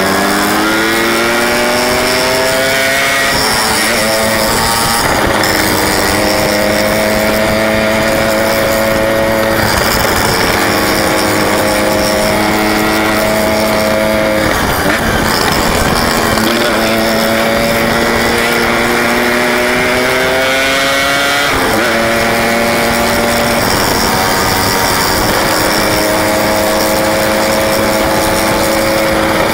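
Yamaha RX-King 135cc air-cooled two-stroke single engine heard from the rider's seat while riding, with its buzzing note climbing as it accelerates, dropping at gear changes about 4 s, 15 s and 21 s in, and holding steady at cruising speed in between.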